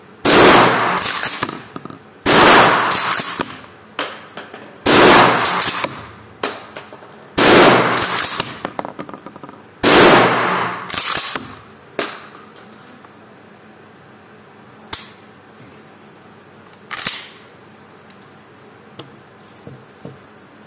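Derya Carina CMX-100 shotgun firing 32 g slugs: five loud shots about two and a half seconds apart, each ringing out in an indoor range. Two fainter sharp knocks follow a few seconds after the last shot.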